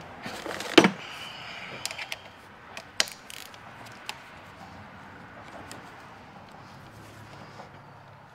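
Metal tools working on a hydraulic cylinder: a loud knock just under a second in, then a few light clicks and taps spread over the next few seconds.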